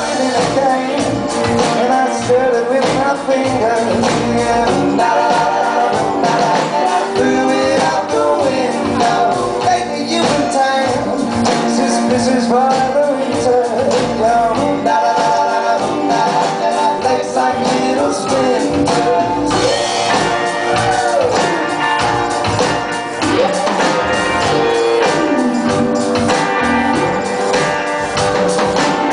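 Rock band playing live, with a male voice singing over electric bass, electric guitars and drums.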